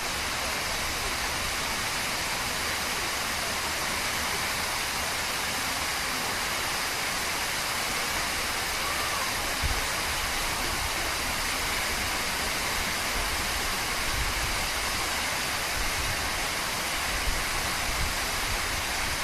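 Steady rush of a large waterfall, its falling water a continuous even noise with no letting up.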